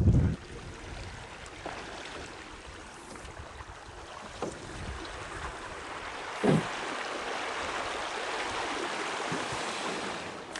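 Mokoro (dugout canoe) gliding through shallow water and reeds, a steady hiss of water and grass brushing the hull. A single short thud comes about six and a half seconds in.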